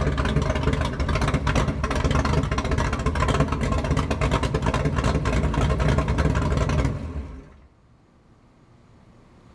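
Ford 351 Windsor V8 running steadily through open exhaust cut-outs, then shut off about seven seconds in, the sound dying away within a second.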